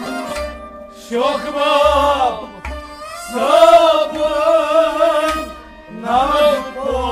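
Kashmiri folk music: a man sings three long, wavering, ornamented phrases over the held chords of a harmonium, with deep drum strokes from a clay-pot drum beneath.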